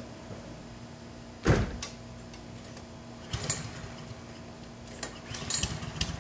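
A push lawn mower being handled out of a plastic garden shed, with its engine not yet running. There is one loud knock about a second and a half in, then scattered light clicks and rattles, over a faint steady hum.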